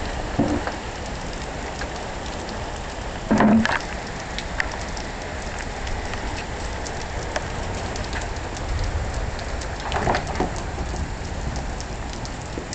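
Steady rain falling, with many separate drops ticking on a hard surface. A few short, louder sounds stand out, the loudest about three and a half seconds in and another about ten seconds in.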